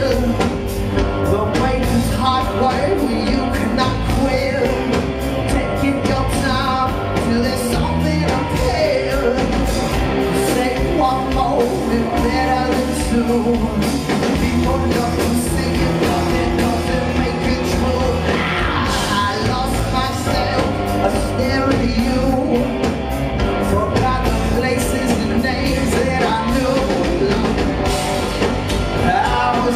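Rock band playing live: electric guitars, bass and drums, continuous and without a break.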